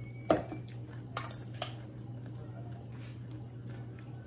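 Cutlery clinking against a bowl as food is scooped up: one sharp clink about a third of a second in, then a few lighter clinks about a second later, over a steady low hum.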